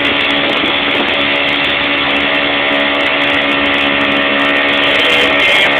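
Small outboard motor running steadily at speed on an inflatable dinghy, a constant engine drone, with the rush of water from the churning wake.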